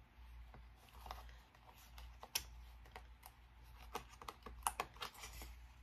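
Hands handling packaging: faint, light clicks and rustles at irregular intervals, as the box is checked for anything left underneath.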